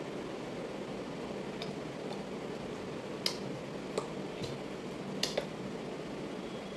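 Steady room noise with a faint hum, and about six short, sharp clicks and taps through the middle, the loudest a little over three seconds in and a close pair about five seconds in.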